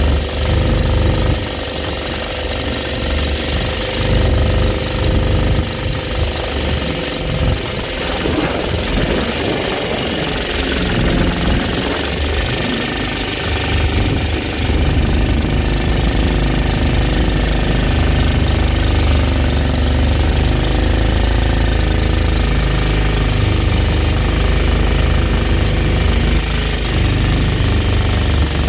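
Mud Skipper Twister mud motor with a worn-out 5 hp single-cylinder engine running steadily under load, pushing a flat-bottom jon boat.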